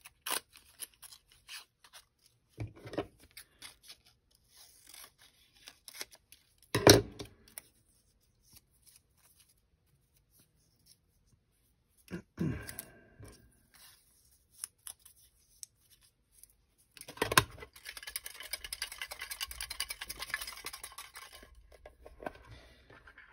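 Small folded paper slips being handled over a metal Altoids mint tin: paper rustling with scattered clicks and a few knocks, the loudest about seven seconds in. From about seventeen seconds in comes a few seconds of rapid rattling as the closed tin is shaken with the paper slips inside.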